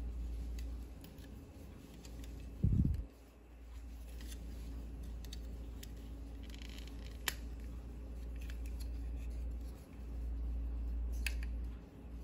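Plastic joints and parts of a Megatron transforming action figure clicking and snapping as they are folded by hand, with scattered sharp clicks and a dull thump about two and a half seconds in, over a steady low hum.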